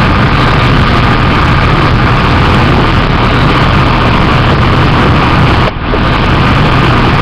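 Loud, steady rumbling noise with no speech, dropping away briefly about five and a half seconds in.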